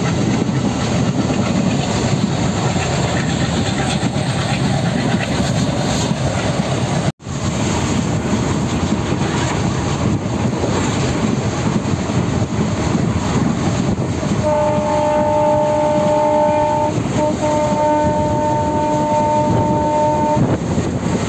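Moving passenger train heard from inside the carriage at an open window: a steady loud rumble with wheel clatter over the rails. In the second half the train horn sounds, a long blast broken once briefly, so two blasts of about two and a half and three and a half seconds.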